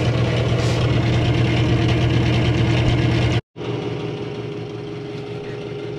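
Steady mechanical hum of a kitchen fan motor with a strong low drone. It drops out for an instant about three and a half seconds in, then carries on quieter with a faint steady high note.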